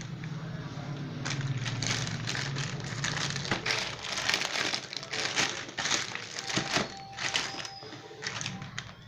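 Smartphone box packaging being handled and opened: irregular crinkling and rustling, with sharper crackles from about the middle on.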